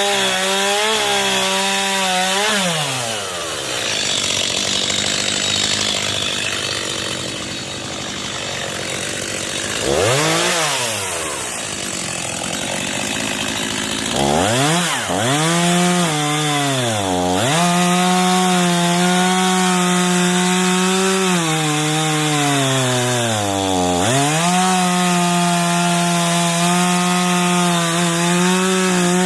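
Chainsaw cutting up a fallen tree, its engine at full throttle. The pitch sags each time the chain bogs into the wood and climbs back as it frees, several times over. For several seconds after the start the engine drops off the high note and eases off before revving again.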